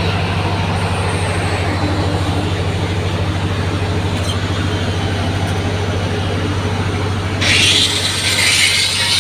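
4-inch angle grinder running with a steady hum, then about seven seconds in the disc bites into the metal edge and a loud, hissy grinding starts as the bevel is cut.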